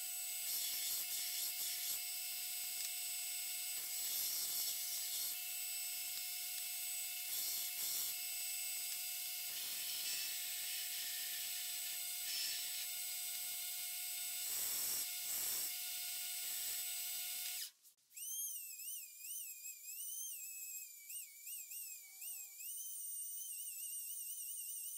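Belt grinder running while a 52100 carbon-steel knife blade is ground against the belt: a steady hiss with a faint whine, swelling now and then as the blade is pressed on. About 17 seconds in it cuts off suddenly, and a wavering, whistle-like musical tone takes over.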